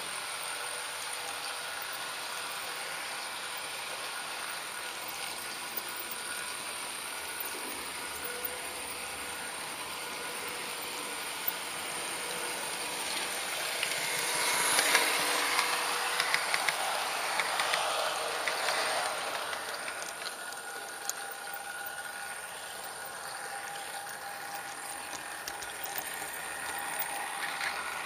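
HO-scale model train running, heard from on board: a steady whir of its motor and gearing with scattered small clicks of wheels on the track. The sound swells louder for a few seconds about halfway through.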